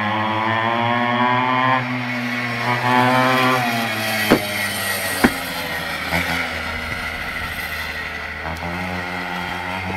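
Small engine of a 49 cc mini motard revving as it is ridden. Its pitch climbs twice in the first four seconds, then it runs more evenly. Two sharp knocks come about four and five seconds in.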